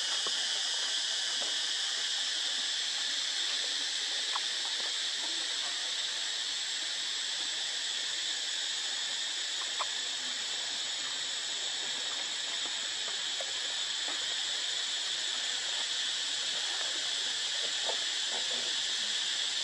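Steady, high-pitched chorus of insects, an unbroken shrill hiss, with a few faint short chirps.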